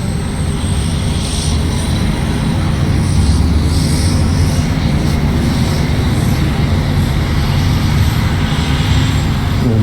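Steady low engine drone of a motor vehicle, with a faint high whine above it and no sudden sounds.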